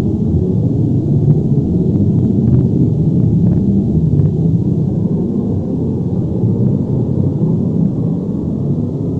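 Deep, continuous earth-rumble sound effect of the kind used for an earthquake or avalanche, a loud low roll with faint crackles between about one and four seconds in.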